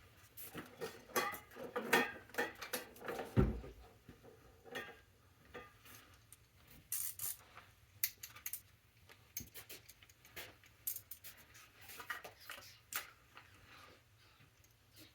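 Metal tools and parts clinking and clattering as they are handled and rummaged through, with a heavy thud about three and a half seconds in.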